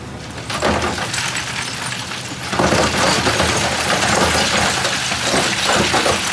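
Gravel and rocks clattering and crunching as heavy machinery moves them, over a low engine hum. The clatter starts about half a second in and grows denser and louder from about two and a half seconds.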